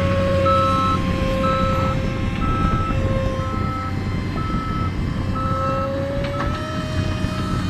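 Scratch-built RC model F-18's motor and propeller whining steadily overhead, its pitch rising about six seconds in, over low rumbling noise. A short electronic beep repeats roughly once a second throughout.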